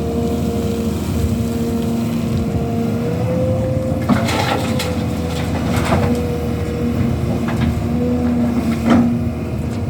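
Heavy earthmoving machinery's diesel engine running steadily, its pitch rising slightly about three seconds in, with sharp clattering knocks of dirt and rock being loaded about four, six and nine seconds in.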